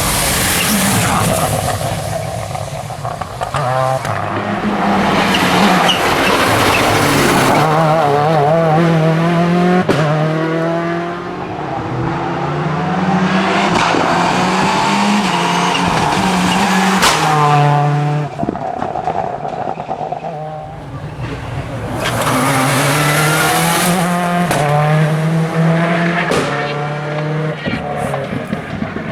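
Seat Córdoba WRC rally car's turbocharged four-cylinder engine driven hard, its pitch climbing and dropping again and again through gear changes. It comes through loudly three times, fading between passes.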